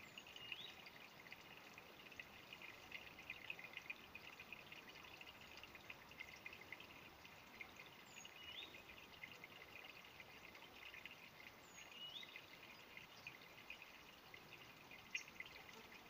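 Small shallow stream trickling faintly with a steady fine gurgle. A bird gives a short two-note call three times: a high falling note, then a rising one.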